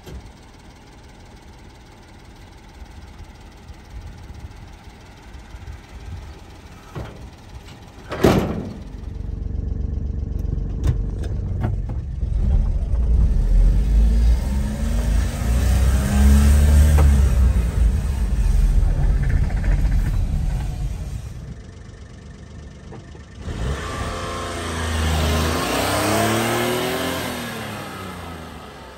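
Honda Acty kei truck's small three-cylinder engine revving and pulling away, its pitch rising and falling through the gears, after a single sharp knock about eight seconds in. The engine eases off, then picks up and accelerates again near the end.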